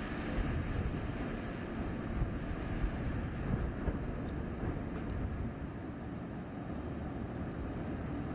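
Blizzard wind blowing as a steady, deep rush of noise, swelling in gusts during the first few seconds and easing slightly after.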